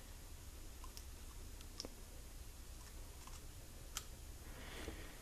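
Faint, sparse clicks of small metal parts as a screwdriver unscrews the trigger guard screw of a nickel-plated Remington pocket revolver, with the sharpest click about four seconds in and a short scrape near the end.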